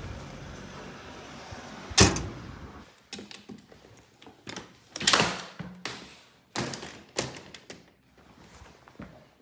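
A metal parcel-locker door is pushed shut with one loud bang about two seconds in. After that, in a quieter room, come several knocks and thuds from a door and belongings being handled.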